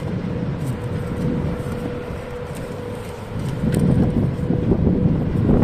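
VL80S electric locomotive moving slowly past at close range: a steady hum under a low rumble that grows louder about three and a half seconds in.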